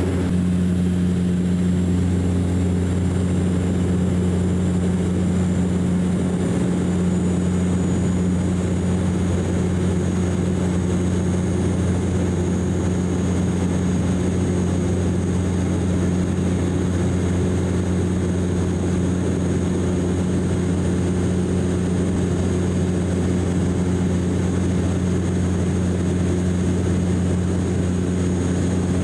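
Cabin noise of a DHC8-Q400 turboprop in its climb after takeoff, heard from beside the engine: the steady low drone of its six-bladed propellers, with a thin high whine above it.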